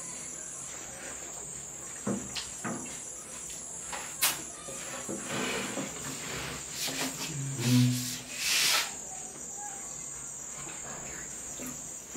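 Crickets chirping steadily, mixed with close eating noises: a few sharp clicks and smacks, and a louder noisy burst with a short low hum about eight seconds in.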